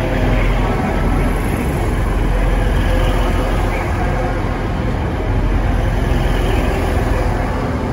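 TransPennine Express Class 185 diesel multiple unit rolling past along the platform, a steady low rumble of engine and wheels that eases slightly near the end.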